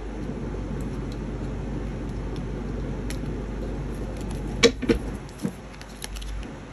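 Tarot cards handled on a tabletop: a card is laid down and turned over with a faint click, then a few sharp clicks of cards are heard about four and a half to five and a half seconds in, over a steady low background hum.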